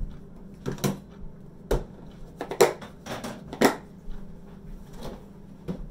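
Kitchen handling clatter: a string of about ten irregular knocks and clinks as bowls and utensils are picked up and set down.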